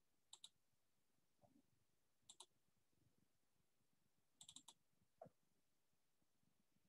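Faint computer mouse clicks over near silence: a quick double click, another about two seconds later, a rapid run of three or four near the middle, and a single click after it.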